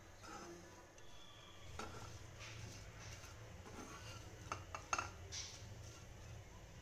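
Metal slotted spatula scraping and tapping against a frying pan while stirring fried bitter gourd slices, with a few sharp clinks about four and a half to five seconds in.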